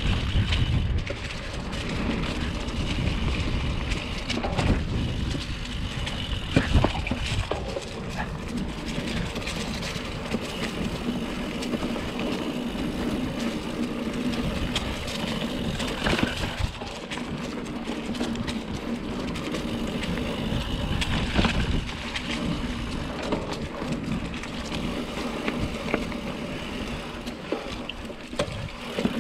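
Mountain bike being ridden on a dirt singletrack: steady tyre and riding noise, broken by short knocks and rattles as the bike goes over bumps.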